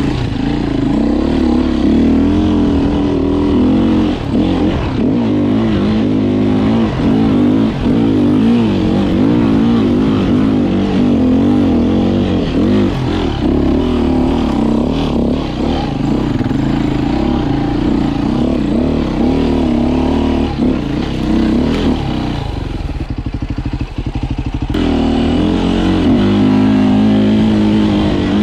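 Beta RR 450 enduro bike's four-stroke single-cylinder engine revving up and down under way, its pitch wavering as the clutch slips. Near the end the revs drop to a low, choppy running for about two seconds, then rise again.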